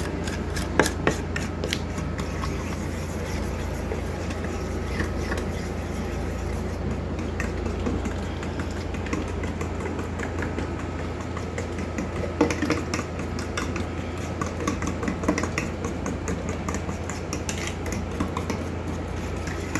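A spoon stirring a mixture in a bowl: quick, repeated scrapes and clicks against the bowl, over a steady low hum.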